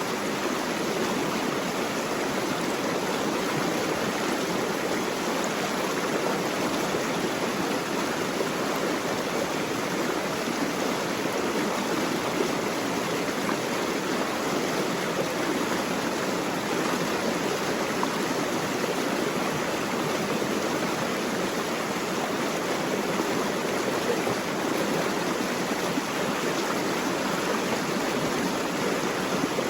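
Running water rushing steadily and evenly, with no pauses or separate splashes.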